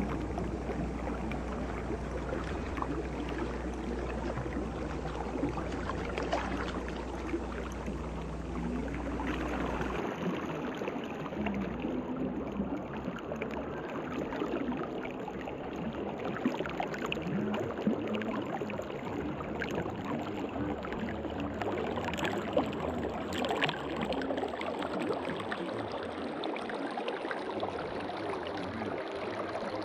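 Running water: a steady rushing and splashing with many small splashes and drips. A low hum underneath stops about a third of the way in.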